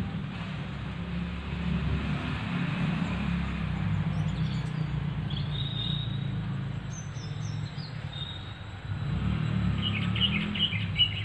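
Small birds chirping in the background, with a few short high calls around the middle and a quick run of chirps near the end, over a steady low rumble.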